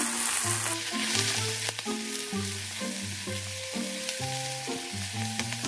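Pork and Japanese long onion sizzling in sesame oil in a frying pan while being stirred with chopsticks, with a few light clicks. Background music with held notes plays underneath.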